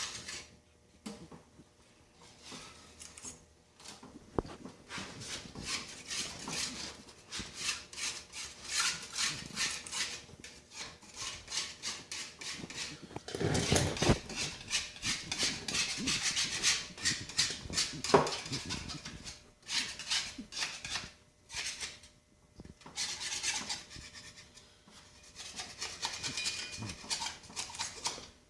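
Repeated rubbing and scraping strokes on the side of a cast anvil, stripping off paint loosened by electrolytic rust removal. The strokes are heaviest about halfway through, with a single sharper knock a few seconds later.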